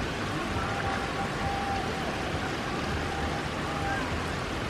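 Steady rain falling on a wet paved yard and lawn: an even hiss of drops.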